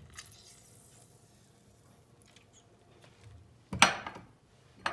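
A lemon squeezed by hand over a bowl of olives, its juice running off a spoon. It is quiet at first, then two short, sharp sounds come near the end, about a second apart.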